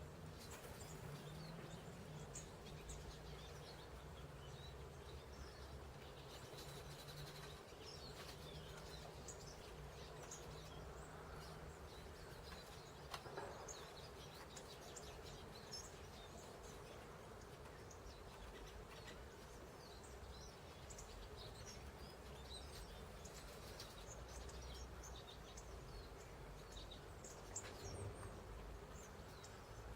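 Small birds chirping faintly and irregularly at a winter feeder, many short high calls scattered throughout, over a steady low background hum, with a couple of brief soft knocks.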